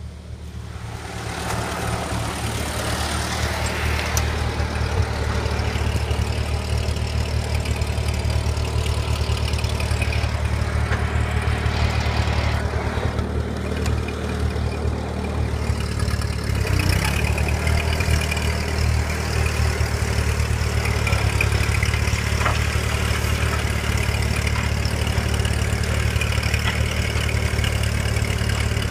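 Ford 8N tractor's four-cylinder flathead engine running steadily while it pulls a rear grading blade, growing louder over the first two seconds, its note shifting slightly about halfway through.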